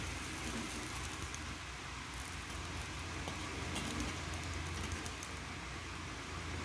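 Hot water steadily hissing and bubbling in a hot wok, with a low hum underneath and a few light scrapes of a spatula stirring.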